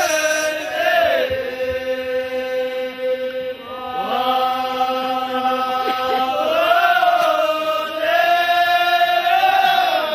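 Ahwach chorus of men chanting a refrain in unison in long held notes, the pitch swelling up and falling back about every three seconds. This is the sung refrain between verses of an Amazigh Ahwach poetry contest.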